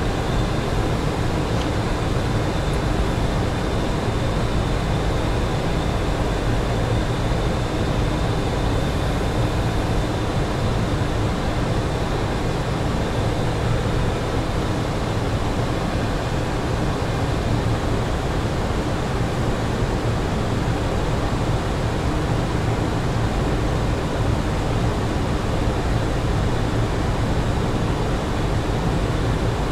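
Steady rush of airflow and engine noise inside a Boeing 737NG flight deck on final approach, with the landing gear down and flaps at 40, plus a faint high whine over the first several seconds.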